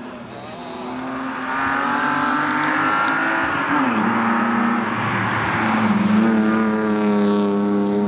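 Rally car engines at full throttle. The pitch climbs, drops sharply at a gear change about halfway through, then climbs again and holds at high revs near the end.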